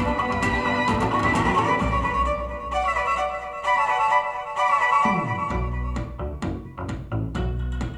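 Recorded music played through Fostex P1000K full-range speakers in quarter-wave resonator cabinets: an instrumental passage led by violin. About five seconds in, a falling bass sweep leads into a steady beat with strong bass.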